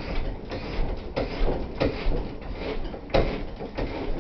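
Pop-top caravan roof being raised: irregular knocking and rattling, with a few sharper clunks.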